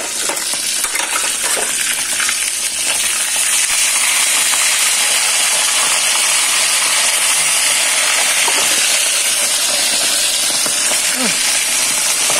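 Hot oil sizzling steadily as pieces of food deep-fry in a wok. A few light metal clinks come in the first couple of seconds.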